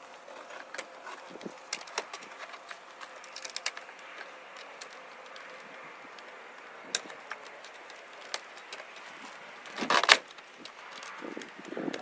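A light pine screen-door frame knocking against the garage door frame as it is closed, and its metal spring-loaded barrel bolts clicking as they are latched, with scattered clicks and knocks and a louder clatter about ten seconds in.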